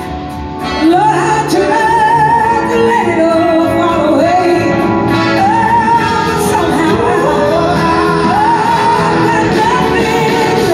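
Live blues-rock band with a singer, amplified in a large hall. The sound is a full mix of melody over guitar, keyboards, horns and drums. The band drops back briefly at the start and comes in loud again about a second in.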